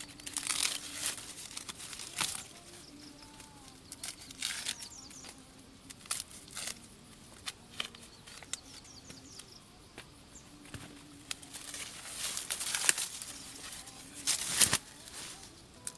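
Irregular rustling, crackling and tearing of leafy plant material being handled, in short bursts, with a louder crackle about two-thirds of the way through and another near the end.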